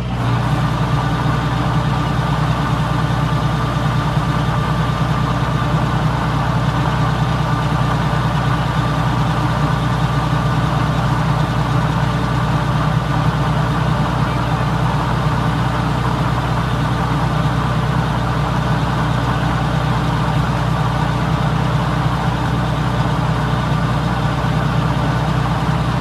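Kubota combine harvester's diesel engine running steadily at constant speed, with a thin steady whine above the engine note.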